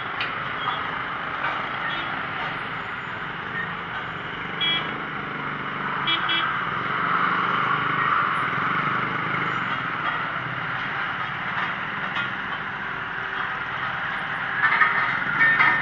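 A tandem road roller's engine running as the machine rolls in close over a fresh asphalt patch, mixed with passing motorcycle traffic. A couple of short beeps sound partway through, and it grows louder toward the middle as the roller nears.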